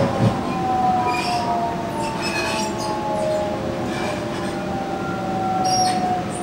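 Traction motor and inverter whine of a Sydney Trains Millennium (M-set) electric train with Alstom IGBT-VVVF propulsion, heard from inside the carriage: several tones falling slowly in pitch as the train slows, over a steady running hum. A thump about a quarter-second in, and brief high squeaks and rattles from the running gear and car body.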